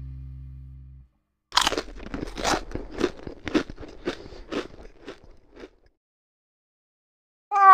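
A cat crunching and chewing food, about two crunches a second for roughly four seconds, then a meow just at the end.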